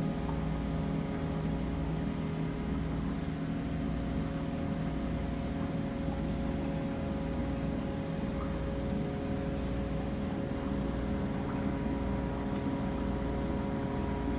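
Steady mechanical hum of aquarium pump and filtration equipment, holding several even tones over a low throb.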